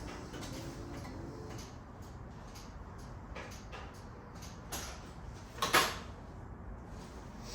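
Hand work on the car: scattered light clicks and knocks of metal parts and tools being handled, with one sharp metallic clunk a little before six seconds in.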